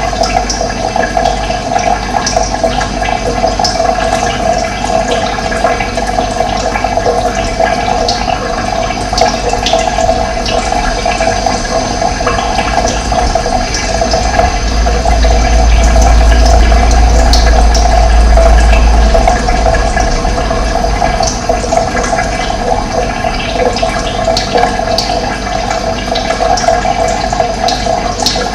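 Running water, a steady flowing rush, with a deeper low rumble swelling for a few seconds midway.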